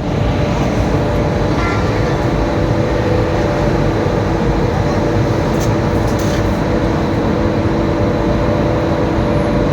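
Loud, steady industrial machinery running: a constant rumble with several steady hum tones and a few faint clicks.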